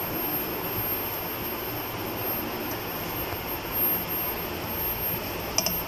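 Chopped onions sizzling steadily as they fry in oil in a nonstick pan, with a brief tap near the end.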